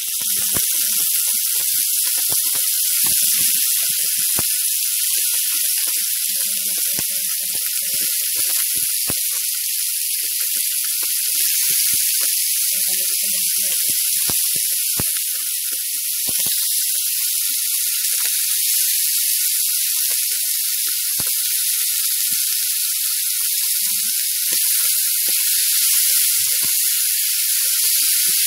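Mushrooms sizzling as they fry in a little oil in a nonstick frying pan: a steady high hiss with scattered clicks and taps as more pieces are dropped in.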